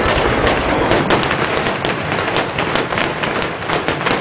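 Aerial fireworks going off in quick succession: a dense run of sharp pops and crackles over a continuous rumble of bursts, the low rumble thinning after a second or two while the crackling keeps on.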